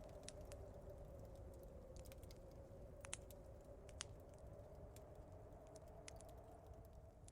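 Faint crackling fireplace: sparse sharp pops and snaps, two louder ones about three and four seconds in, over a low steady rumble.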